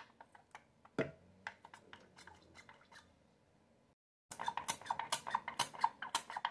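Glass oil spray bottle being pumped, each press giving a short spritz of oil spray. A few scattered presses in the first three seconds, then a quick run of several presses a second from about four seconds in.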